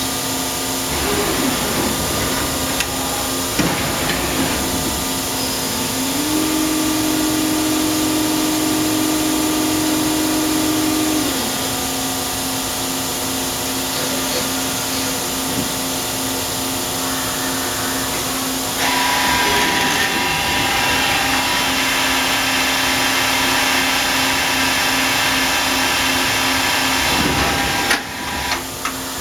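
Hitachi Seiki CA23II CNC lathe running with a steady hum. A second, higher tone joins from about six to eleven seconds in, and a hiss comes in about nineteen seconds in and stops near the end.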